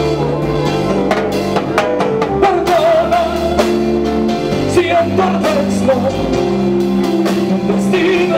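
Live band music with bass, drum kit and timbales, and a male singer's voice over it.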